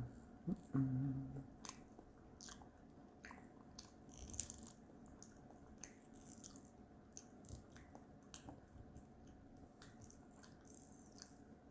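Someone eating close to the microphone: faint chewing with small scattered mouth clicks and crunches, and a short hummed voice sound about a second in.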